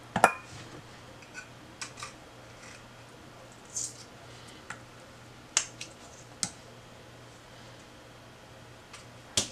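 Scattered sharp clicks and taps from longans being peeled by hand with a small knife over a stainless steel bowl. The loudest click comes just after the start and rings briefly. A faint steady low hum runs underneath.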